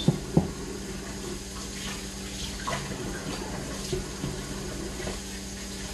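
Kitchen sink tap running as raw turkey wings are rinsed under it, with small splashes. Two sharp knocks right at the start.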